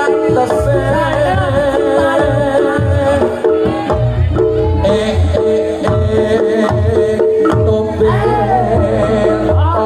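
Reog Ponorogo gamelan music: a slompret reed-pipe melody with bending, ornamented notes over kendang drum strokes and held gong-chime tones, in a steady rhythm.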